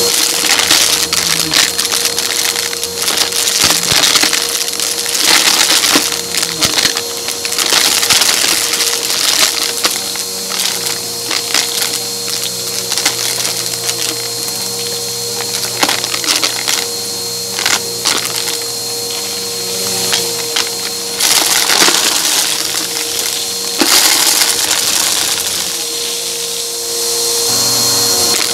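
Bissell upright vacuum's brushroll sucking up coins and pebbles from shag carpet, heard from a microphone mounted on the vacuum. A dense, crunchy crackle and rattle of debris goes on throughout over the motor's steady whine, with louder spells of crunching every few seconds.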